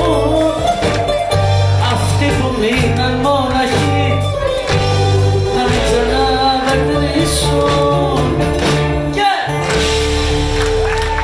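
Live Greek popular music: a band with bouzouki, violin, drums and keyboard playing while a woman sings the melody into a microphone.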